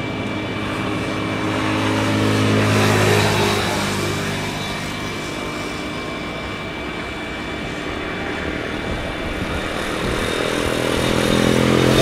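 Jet engines of a Boeing 737-800 (CFM56-7B turbofans) on final approach: a steady hum with a thin high whine. The engines get louder toward the end as the plane nears, with an earlier louder swell about three seconds in.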